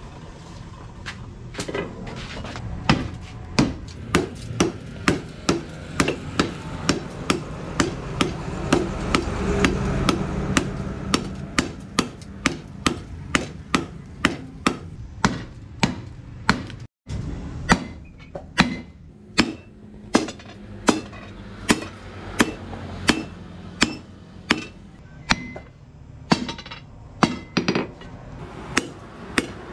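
Hand hammer striking red-hot rebar on a steel post anvil in a steady rhythm of about two blows a second, with one very brief break about halfway through.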